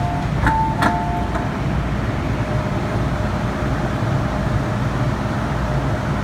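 Train door-closing warning beeps aboard an MTR M-Train: a few short two-pitch beeps in the first second and a half. Then the steady low rumble of the train, as it begins to pull out of the platform.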